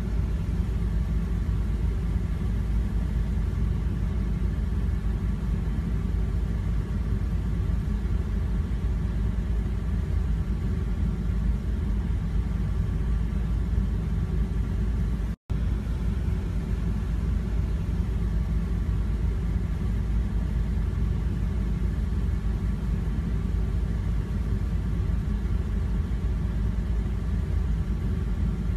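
Steady low rumble of a car driving along a road, with engine and road noise. It cuts out completely for a moment about halfway through.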